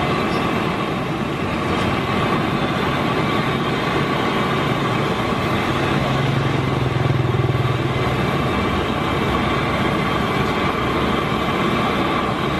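A motor running steadily with a constant whine, a deeper hum swelling about halfway through; it cuts off abruptly at the end.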